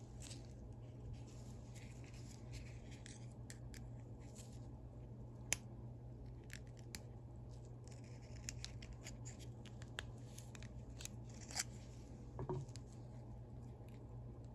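Scattered small metal clicks and scrapes as a ratchet's head is opened up by hand for a teardown. There is one sharp click about five and a half seconds in, and another near the end.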